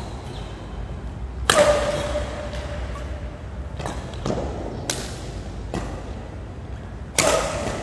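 Badminton rackets striking the shuttlecock in a fast doubles rally: about seven sharp hits at uneven intervals, the loudest about a second and a half in and near the end, each with a short echo in the hall.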